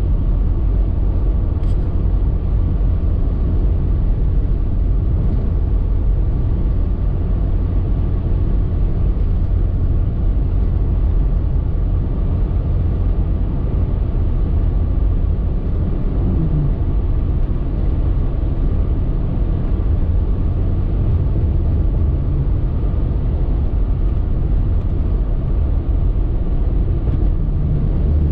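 Steady low rumble of a car driving down a highway, with engine and tyre noise heard from inside the cabin.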